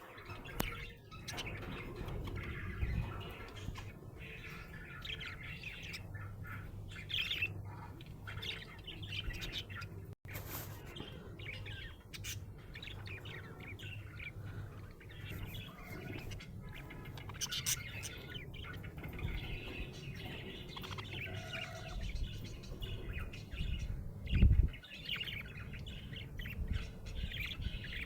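Budgerigars chirping and chattering, with many short chirps and trills throughout and a louder low thump near the end.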